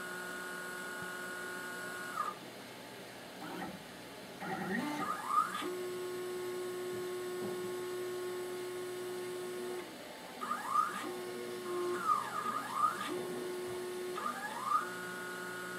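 XYZprinting da Vinci 3D printer's stepper motors driving the print head and bed through their moves before a print. The motors give whines that sweep up and down in pitch, with stretches of steady tone in between.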